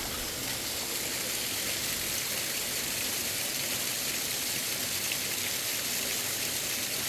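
Mountain stream water rushing steadily, a continuous even hiss with no distinct splashes or breaks.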